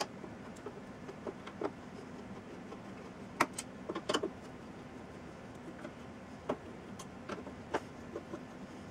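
Screwdriver backing small screws out of the plastic housing of a desoldering gun handpiece: scattered faint clicks and taps, the sharpest a little over three and four seconds in, over a low steady hum.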